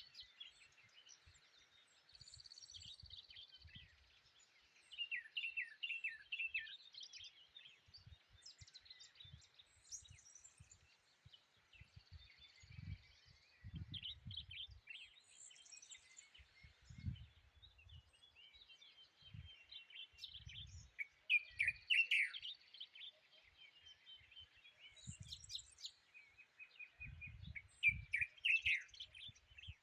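A small songbird, known in Tashelhit as tabarghla, sings short phrases of quick falling notes every few seconds, with higher chirps in between. Low thumps come and go.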